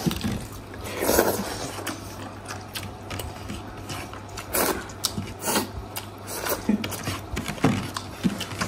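Close-up eating by hand: chewing with wet mouth clicks and smacks, and fingers scraping food on the plate, with a few louder smacks about a second in and around four and a half seconds in.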